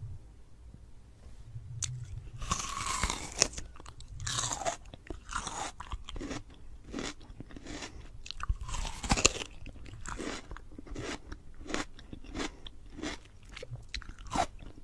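Close-miked eating sounds: a person biting and chewing crunchy food, with irregular loud crunches and denser bursts of crunching about two and a half, four and a half and nine seconds in.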